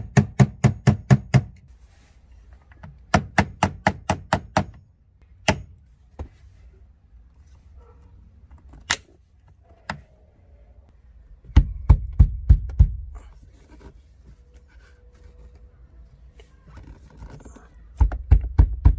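Hammer striking a screwdriver held against a pin in a Toyota MR2 Spyder's shifter assembly, driving the pin out. It comes in runs of quick sharp strikes, about four or five a second, broken by pauses and a few single blows.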